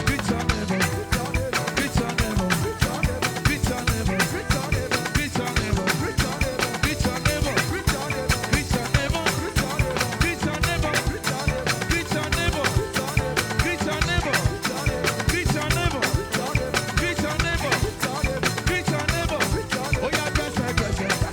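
Live band playing upbeat African gospel dance music with a steady, driving drum beat and melodic instrument lines, without vocals standing out.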